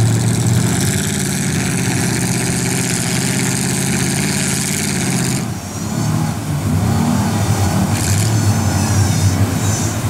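Pickup truck engines working under load as a lifted truck tows a mud-stuck pickup through a flooded pit. A steady drone for the first half, then a brief dip a little past halfway, after which the revs rise and fall.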